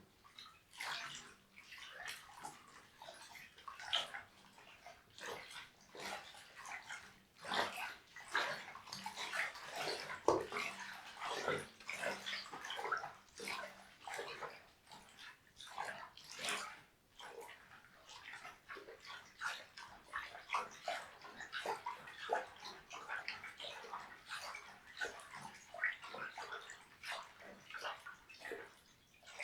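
Water splashing and sloshing close up, in a quick irregular run of small splashes and drips.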